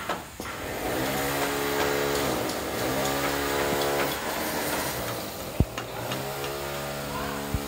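A motor revving up and falling back three times, each run lasting about a second and a half. A single sharp knock about five and a half seconds in.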